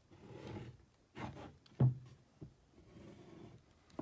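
Wooden boards and a squeeze bottle of wood glue handled on a workbench: soft rubbing with a few light knocks and clicks, the sharpest a little under two seconds in.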